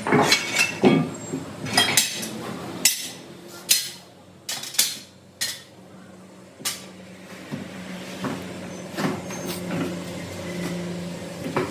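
Irregular sharp knocks and clinks of metal tools being struck or set down, about a dozen spread over several seconds, over a faint steady hum.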